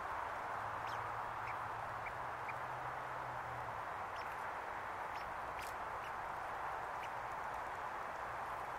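A steady hiss with faint, irregular small clicks, about nine in all: a red squirrel gnawing and stripping scales from a conifer cone.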